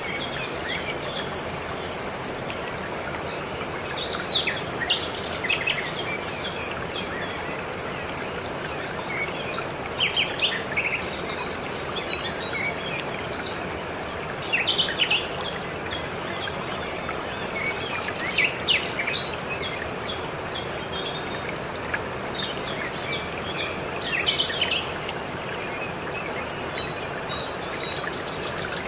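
Waterfall rushing steadily, with songbirds chirping in short runs every few seconds over it.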